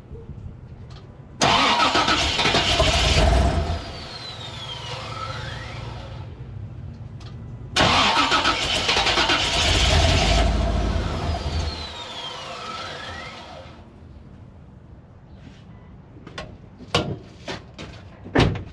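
1988 Chevy Suburban's 7.4L 454 V8 cranked twice. Each time it fires and runs for a few seconds, then dies away. The fuel gauge reads no pressure, which the owner takes for a bad fuel pump. A few knocks near the end.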